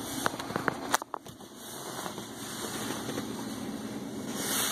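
Steady hum of the truck idling, heard from inside the cab of a 2016 GMC Canyon with its V6, with a few small clicks in the first second and a sharper click just before the hum dips briefly.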